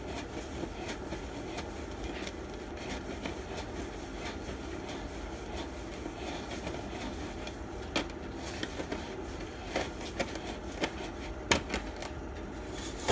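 Dry sand rustling and trickling through a funnel into a plastic heater base as fingers work it through, with a few sharp clicks, one about 8 seconds in and one near the end.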